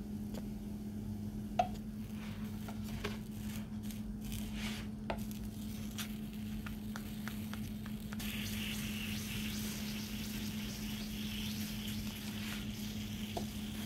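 Scattered light taps and scrapes of a wooden spatula on the non-stick plate of an electric crepe maker as a crepe is folded over, above a steady low hum. A faint sizzle of the crepe cooking on the hot plate sets in about eight seconds in.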